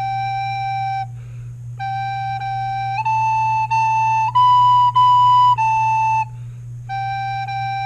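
Soprano recorder playing a slow beginner melody on three notes, G, A and B, one held note at a time, stepping up G, G, A, A, B, B and back down to A, with a short breath between phrases. A steady low hum runs underneath.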